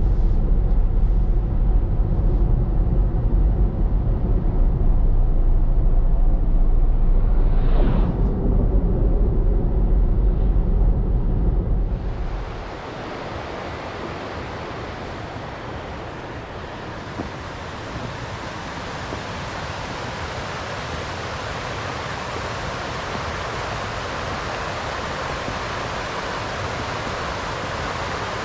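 A loud, deep low rumble for the first twelve seconds, then a sudden change to a steady rushing hiss of water pouring down the partly frozen waterfall.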